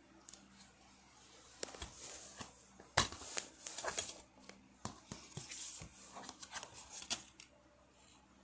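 Plastic DVD case being handled and opened by hand: a string of clicks, taps and scraping rustles, with the loudest sharp snap about three seconds in.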